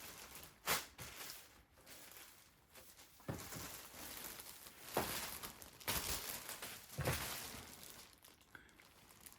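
Plastic packing bag crinkling and rustling as it is handled, in several separate bursts.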